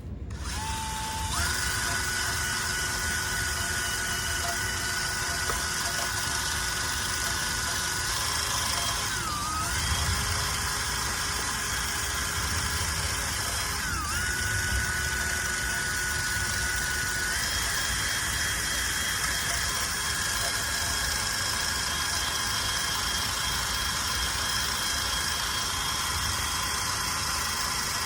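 A small electric motor starts up about a second in and runs with a steady high whine, its pitch briefly dipping and recovering twice as if loaded.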